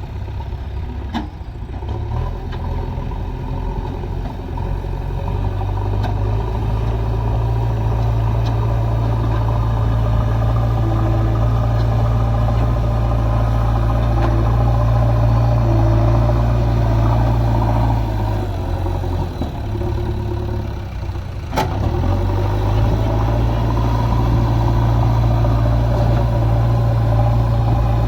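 JCB backhoe loader's diesel engine running steadily under working load. It grows louder over the first few seconds, drops in pitch briefly about 18 seconds in, then picks up again after a sharp knock about 21 seconds in.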